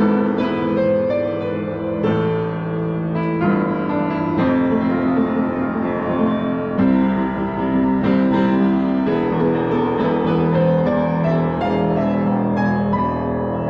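Fazer-built Hellas upright piano, about 40 years old, being played with both hands: chords and a melody line in the middle register, a new chord struck every second or two and left to ring.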